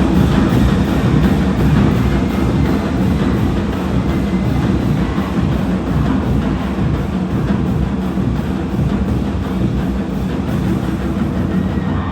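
High school marching band playing, with drums and percussion prominent.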